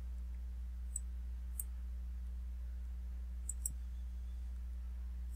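A few faint computer mouse clicks, one about a second in, another shortly after, and a quick pair past the middle, over a steady low hum.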